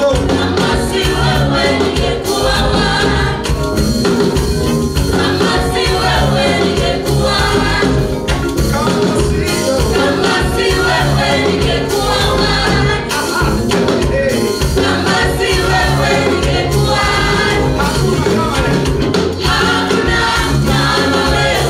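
A praise band and singers performing a gospel song, with a steady beat throughout.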